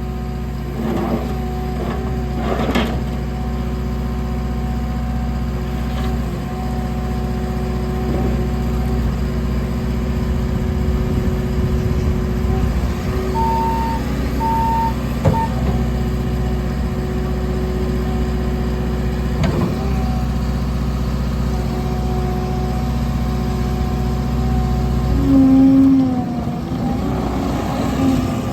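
JCB 3TS-8T telescopic skid steer loader's diesel engine running steadily, with a few knocks and clanks. Two short beeps come midway, and the engine note changes with a louder tone near the end.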